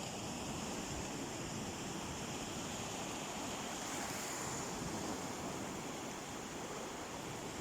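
Sea waves washing onto a beach in a steady, even surf wash.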